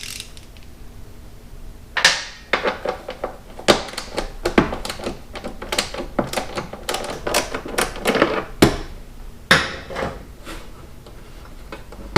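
Hand ratchet with a T40 Torx bit clicking in short, uneven runs as fasteners are worked loose, with a few louder metal knocks of the tool against the motorcycle. It starts about two seconds in and dies down near the end.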